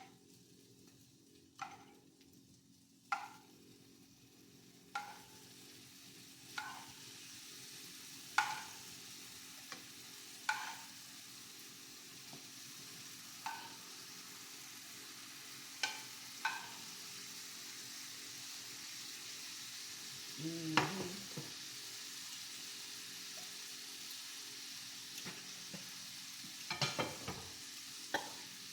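Quesadillas frying in vegan butter in a pan: a steady sizzle that slowly grows louder, broken by short sharp clicks every second or two.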